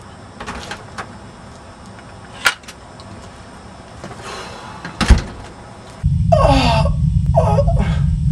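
A door opening and shutting: a few soft clicks, a sharp tap about two and a half seconds in and a loud knock just after five seconds. From about six seconds a loud low rumble takes over, with falling, sliding tones above it.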